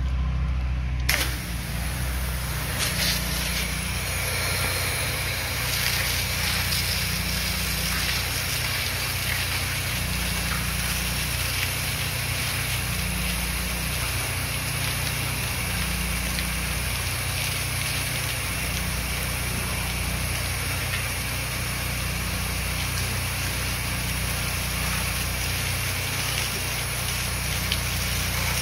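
Pressure washer spraying a long high-pressure stream through a shooter tip, an even hiss that starts about a second in, over the steady low hum of the machine's engine running.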